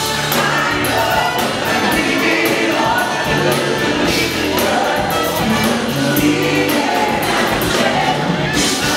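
Live band playing a song, with a male lead singer and backing singers over percussion, drum kit and guitars.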